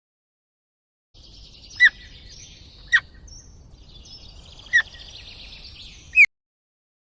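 After a second of silence, a bird gives four short, sharp calls that drop quickly in pitch, spaced about one to two seconds apart, over a steady high chirping in the background; the clip cuts off abruptly near the end.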